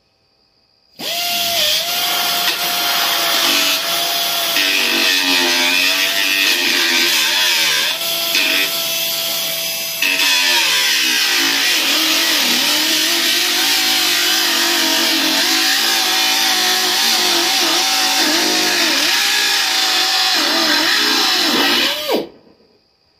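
Pneumatic cut-off wheel cutting through the sheet metal of a Corvette firewall: a high whine over a loud hiss starts about a second in, its pitch sagging and wavering as the disc bites into the metal, and stops abruptly near the end.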